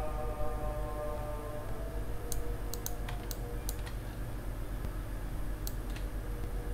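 Clicking at a computer: a quick run of about seven sharp clicks a little over two seconds in, then two more near the end, over a steady low hum.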